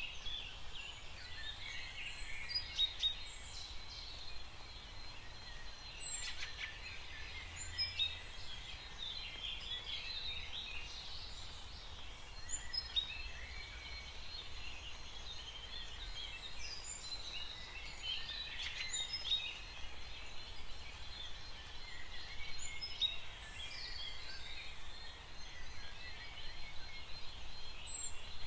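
Small birds chirping and twittering, many short calls overlapping without a break.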